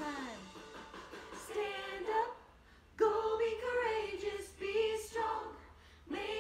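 A woman singing without accompaniment, holding long notes, with a short break about two seconds in before she starts again at three seconds.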